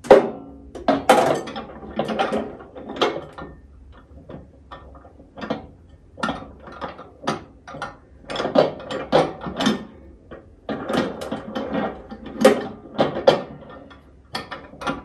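Irregular clicks and knocks of a new microwave oven's parts being handled and fitted into place.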